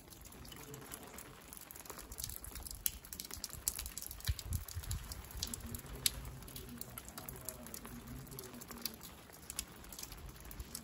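Rain dripping and pattering on wet stone steps and paving: a soft steady hiss with many scattered sharp drips.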